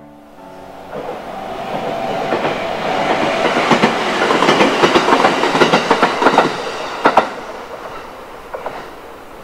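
A local electric train on the Chuo Main Line passing by, its wheels clacking over the rail joints. The sound swells to a peak in the middle, with a last couple of sharp clacks, then fades as the train moves away.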